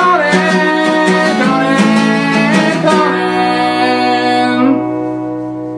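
Sung novelty jingle with strummed acoustic guitar; the singing and strumming give way about three seconds in to a final chord that rings on and slowly fades.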